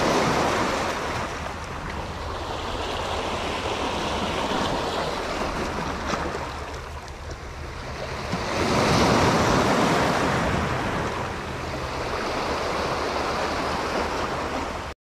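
Sea waves breaking and washing over a concrete-block breakwater, swelling loudest right at the start and again about nine seconds in.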